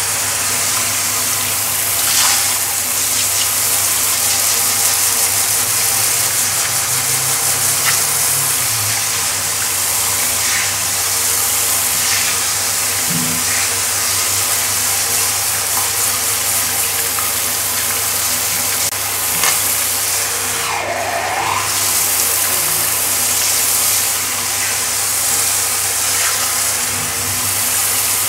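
Pet grooming shower head spraying water onto a tiled floor: a steady hiss of running water, with a steady low hum underneath.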